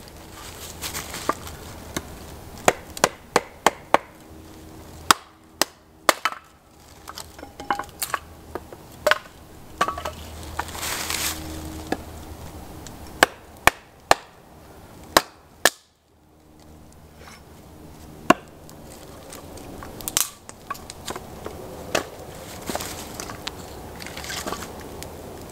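Hatchet splitting kindling on a wooden chopping stump: a string of sharp, irregular knocks, some in quick runs of three or four, over a steady rushing background.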